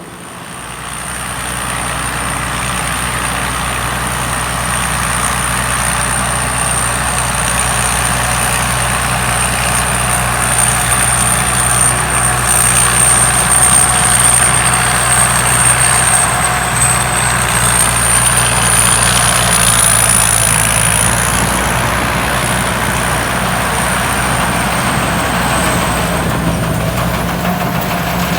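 Combine harvester running steadily under a diesel engine's low hum, with machine noise and a high thin whine that wavers slightly in pitch. It grows louder over the first two seconds.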